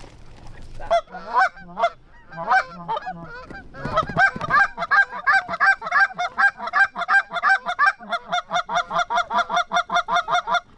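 Canada goose call, most likely a hunter's goose call: a few scattered honks, then from about four seconds a fast, even run of clucks, about four a second, that stops suddenly near the end.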